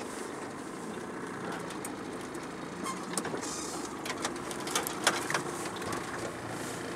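Outboard motor running at low power, with dead branches scraping and cracking against the boat's aluminium hull several times, mostly in the second half, as it pushes through submerged trees.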